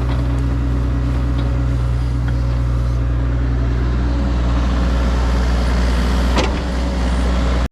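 Diesel engine of a construction machine running steadily under a light load, with a few faint knocks and one sharper knock about six and a half seconds in. The sound cuts off abruptly just before the end.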